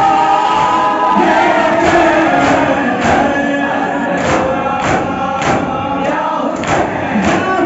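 Men's voices chanting a Shia noha lament in chorus, with the crowd's hands striking their chests (matam) in a steady beat, a little under two strokes a second.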